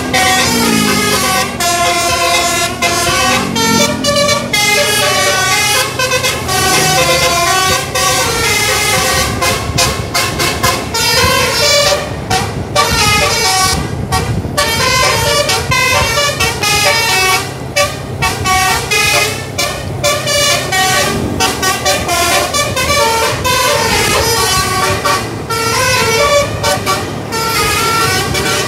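Bus telolet horn, a multi-tone basuri air horn, playing a long, fast melody of short notes, several tones sounding together, over the bus engine running.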